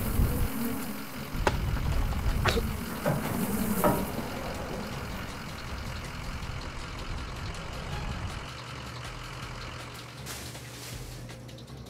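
A motor vehicle engine idling, deep and steady, with four sharp clicks over the first four seconds, then running on a little quieter.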